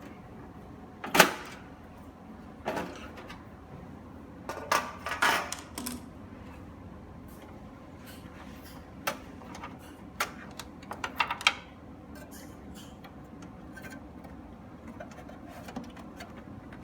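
Scattered clicks, knocks and short scrapes of a desktop PC tower being handled, with the loudest knock about a second in and small clusters of clicks around five and eleven seconds.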